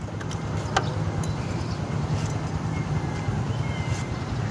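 Key-duplicating machine's electric motor running with a steady hum, with a light click about a second in as keys are handled.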